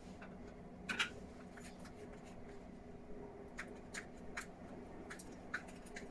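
Small sauce containers handled and set down on a ceramic plate: scattered light clicks and taps, the loudest about a second in, over a faint steady hum.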